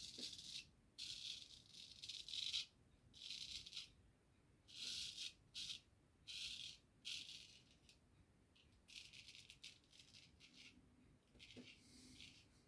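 Razor scraping through lathered stubble in a wet shave's second pass: a series of short, faint, raspy strokes, each under a second, with brief pauses between them.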